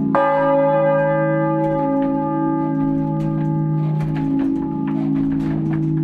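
Swinging cast-steel church bells (Bochumer Verein, 1922) ringing in the belfry, heard up close. A hard clapper strike just after the start rings on in many long-held tones over a low hum that pulses, with faint clicks from the swinging gear.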